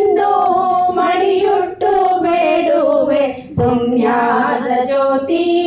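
A female voice singing a Kannada folk song about the mother's home, drawing out long, gently wavering notes, with a short breath about three and a half seconds in.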